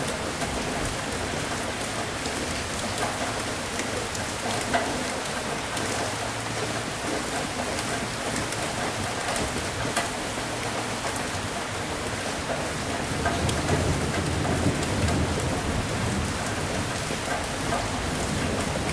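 Steady rain falling, with individual drops striking close by. A low thunder rumble swells about two-thirds of the way through and then fades back under the rain.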